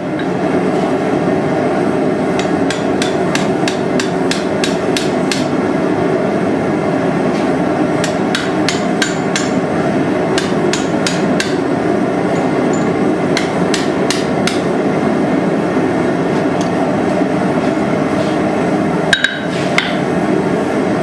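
Hand hammer strikes on hot steel during forge welding of a wrapped-eye tomahawk, irregular blows for the first two-thirds and then stopping. Under them runs the steady roar of a propane gas forge turned up to high pressure. A short metallic clink comes near the end.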